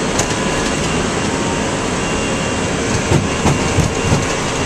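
Airbus A320 on its takeoff roll heard from the cockpit: steady engine and airflow noise at takeoff power, with a quick run of thumps about three seconds in as the landing gear rolls over bumps in the runway.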